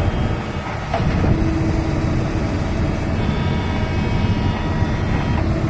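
Heavy diesel engine running, a dense low rumble with a steady whine, stepping up in loudness about a second in.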